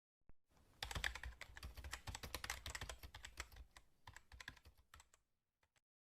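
Faint, rapid, irregular clicks and taps, like typing, starting about a second in and trailing off after about four seconds.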